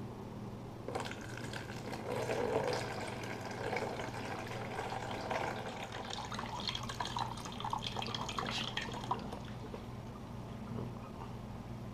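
Water pouring out of a plastic chicken waterer into a plastic bowl, splashing and trickling. It starts about a second in, is heaviest just after, and tapers to a trickle near the end.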